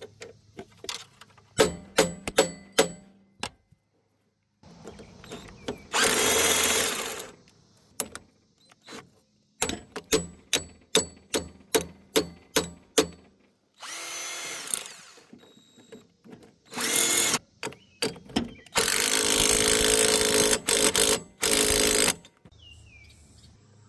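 Power drill run in several short bursts, the longest about three seconds near the end. Between the bursts come series of sharp metallic taps, about three a second for a few seconds in the middle.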